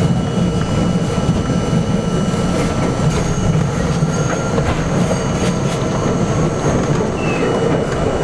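R42 subway train running on elevated steel track, a steady rolling rumble with wheel squeal on the curve and scattered clicks of the wheels over rail joints.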